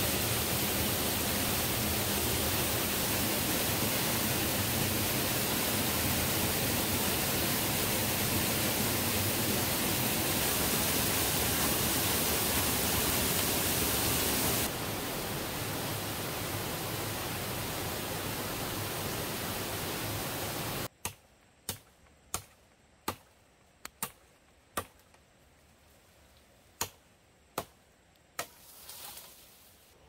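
Steady rush of a big waterfall, which drops somewhat in level about halfway and cuts off abruptly about two-thirds in. About eight sharp knocks follow at uneven spacing, then a short swish near the end.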